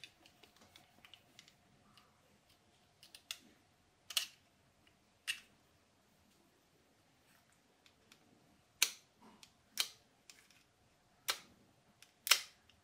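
Snap-off craft knife blade scraped and struck against the metal fins of a spark Beyblade, a series of short, sharp metallic clicks at irregular intervals, the strongest in the second half.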